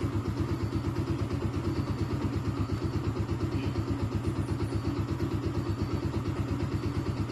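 Motorcycle engine idling steadily, with an even, rapid pulse.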